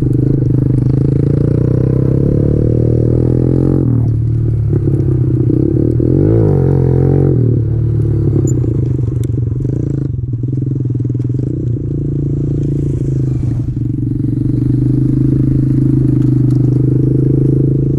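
Kawasaki KLX110 pit bike's small single-cylinder four-stroke engine running steadily under way. The engine note briefly wavers about six seconds in.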